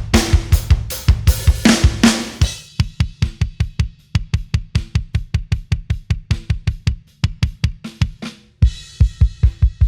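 Close-miked rock kick drum playing a fast, even run of beats, several a second, in a double-kick style. For the first two and a half seconds it plays with the full kit, snare hits and cymbals included. It then carries on alone with a sharp click on each beat, and cymbals come back in near the end.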